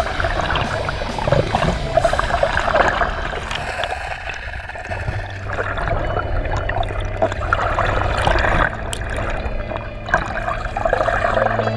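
Muffled water sloshing and gurgling around an underwater camera, with an irregular crackle and a steady low hum beneath it.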